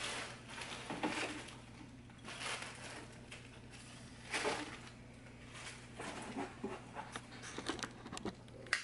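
Quiet handling noise from a vintage Thordarson tube amplifier being turned around on a bench: its metal case shifting and scraping, with a soft knock about four and a half seconds in and a few light clicks near the end.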